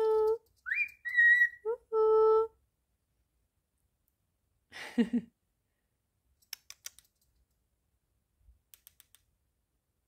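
Whistled 'woo-hoo' calls from a cockatiel and its owner: a low held 'hoo' and a whistle that rises and levels off high, over the first two and a half seconds. A short call follows about five seconds in, then a few light clicks.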